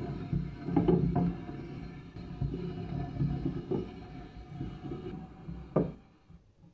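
Steel spindle screw of an 1895 Alexanderwerk book press turning in its threaded crossbeam as the brass-ball handle is spun, a steady metallic rubbing with a few knocks, the loudest one about six seconds in, after which the sound dies away.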